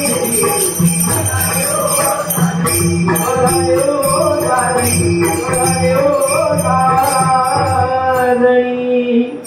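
Marathi devotional bhajan (abhang) singing: a male lead voice with harmonium, a steady drum beat and jingling hand cymbals. Near the end the voice holds a long note and the music stops.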